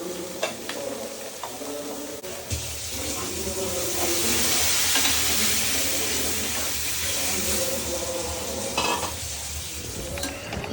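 Food sizzling in a hot pan; the sizzle swells a couple of seconds in, with a few light clinks of utensils.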